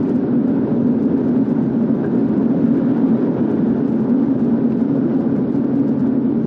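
Steady low drone of a car being driven at an even road speed: engine and tyre noise.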